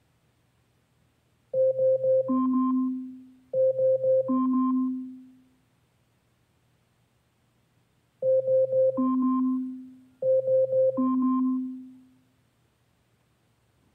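Amazon Echo smart speaker sounding its Alexa alarm: an electronic chime of three quick notes followed by a ringing two-note tone that fades. The phrase plays twice in a row, pauses for about three seconds, then plays twice more.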